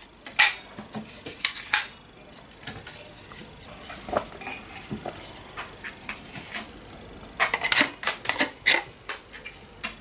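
Hard plastic and metal parts of a Kitfort KT-559 stick vacuum clicking and knocking together as they are handled. A string of short sharp clicks, thickest in the first two seconds and again around eight seconds in.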